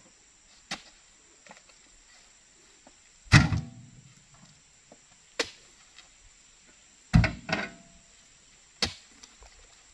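Heavy oil palm fruit bunches thudding into a steel dump-truck body as they are loaded by hand, with two loud thuds with a short metallic ring, one about a third of the way in and one after about seven seconds. Sharper single knocks fall between them.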